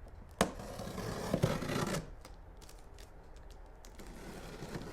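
A large cardboard box being handled: a sharp knock about half a second in, then scraping and rubbing for about a second and a half, followed by a few light clicks.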